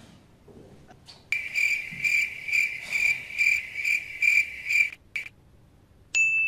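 Cricket chirping, a high pulsing trill at about two chirps a second, starting about a second in and stopping abruptly after about four seconds. A short steady electronic beep follows near the end.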